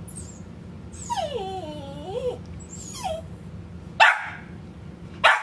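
A dog whining, a wavering pitch that falls and rises, then two short sharp barks near the end.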